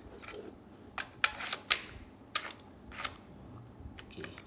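Sharp plastic clicks and clacks from a toy gel-ball blaster pistol as its magazine is pushed into the grip and released with the release button. A string of separate clicks, the two loudest about a second and a quarter in and half a second later, with a small cluster near the end.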